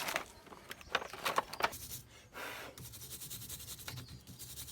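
Short scraping and rubbing strokes of metal on metal as corroded RV battery cable terminals are cleaned to restore a good connection, followed by a faint steady low hum.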